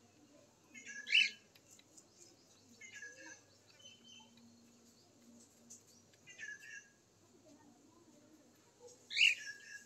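Short, high bird chirps in small clusters every two to three seconds, the loudest about a second in and near the end.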